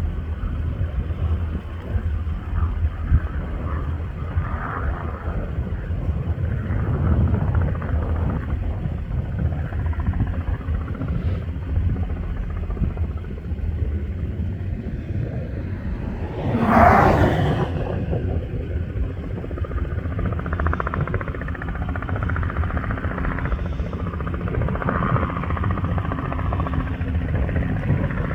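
Robinson R44 helicopter rumbling steadily, with a brief louder swell about seventeen seconds in.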